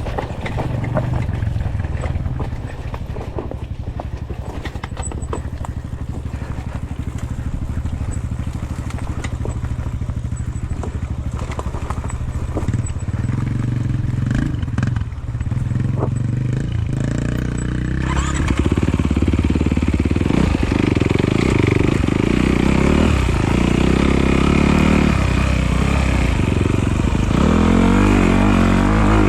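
Honda CRF off-road motorcycle engine running at low, steady revs for the first half, with scattered clicks. From a little past halfway it gets louder, the revs rising and falling again and again as the bike is ridden harder.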